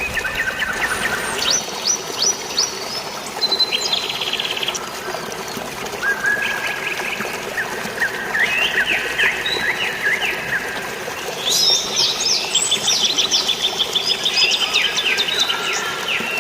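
Several songbirds chirping and trilling, their calls overlapping and busiest near the end, over a steady hiss of drizzling rain and flowing water.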